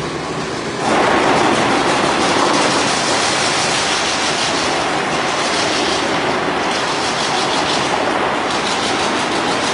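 Metal-spinning lathe running with a large sheet-metal dish on its spindle: a loud, steady metallic rumble and rattle that grows louder about a second in.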